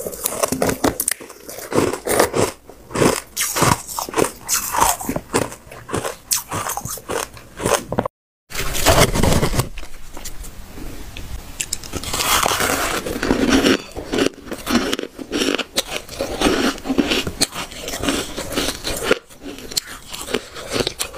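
Close-up biting and chewing of ice: a dense run of sharp crunches as packed shaved ice and then frosty ice chunks break between the teeth. A brief gap of silence about eight seconds in.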